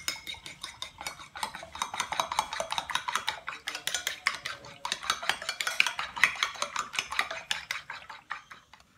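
A metal spoon beating a raw egg in a ceramic bowl, with rapid clinking against the bowl that stops near the end.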